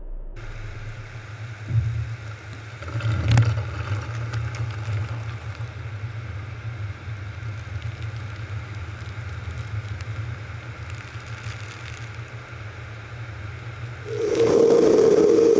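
Automatic car wash tunnel equipment running: a steady low hum and hiss, with two louder knocks against the car's front early on. About fourteen seconds in, a much louder blower starts, a strong steady hum over a rush of air, as the car reaches the drying stage.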